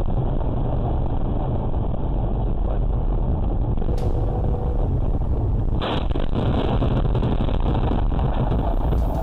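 Steady drone of a car driving at speed, heard from inside the cabin through a dashcam microphone: engine and road noise, with a brief click about four seconds in and the noise turning brighter at about six seconds.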